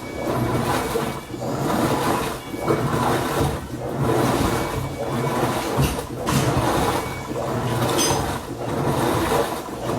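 Philco PLR14B top-load washing machine agitating a load in water during its wash cycle: a low motor hum with a swishing that swells and fades in a steady rhythm, roughly once a second.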